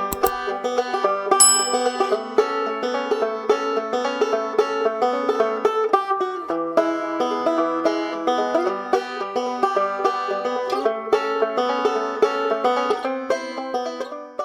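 Upbeat banjo music, quick plucked notes in a bluegrass style, fading out at the end.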